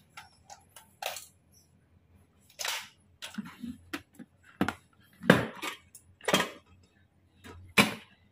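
Sharp plastic clicks and knocks from a small electric rice cooker being handled, its lid pressed down and its plug worked at a power strip; the loudest knocks come in the second half.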